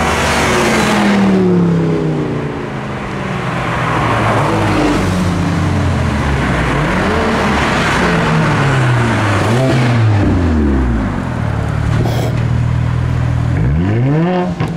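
Several cars driving past one after another, their engines revving, the notes rising and falling and overlapping. One engine revs up sharply near the end.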